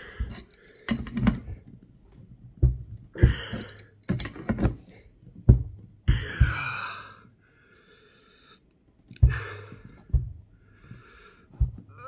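An adjustable wrench tightens a threaded gas pipe into a furnace gas valve: scattered metal clicks and knocks, with strained, wheezy breaths in between.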